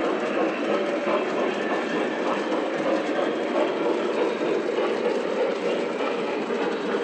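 Several large model trains running at once on metal track: a steady rumble of wheels and motors with faint, irregular clicking.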